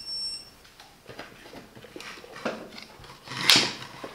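A short high electronic beep from the clamp meter in the first half second, then rustling and clicking as the cables and meter are handled, with one louder clack about three and a half seconds in.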